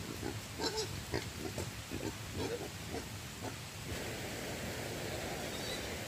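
A run of about a dozen short animal calls in quick, irregular succession, followed about four seconds in by a steady hiss.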